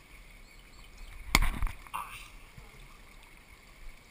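Pool water lapping around a camera held at water level, with one sudden loud slap and splash close by about a second and a half in.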